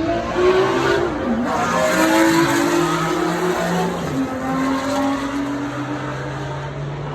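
Supercar engine revving hard: its pitch dips about a second in, climbs again, then steps down about four seconds in and holds steady.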